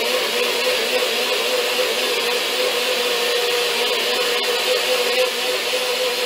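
Personal bullet-style blender running steadily, its motor whine held at one pitch, puréeing canned peaches, onion and garlic into a creamy sauce.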